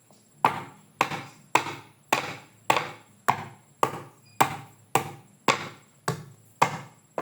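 A piece of fresh ginger being pounded to crush it: sharp, evenly spaced strikes, about two a second.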